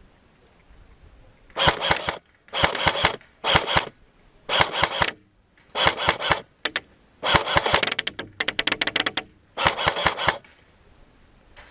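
Airsoft gun firing on full auto in about seven short bursts of rapid clicking shots, with one longer burst of about two seconds past the middle.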